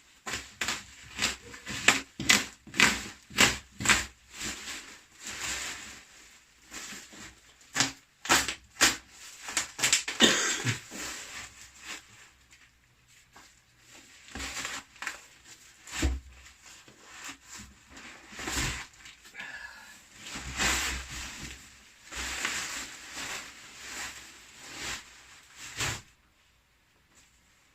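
Packaging being handled during an unboxing: irregular crunching and crinkling in bursts, with a short lull about twelve seconds in.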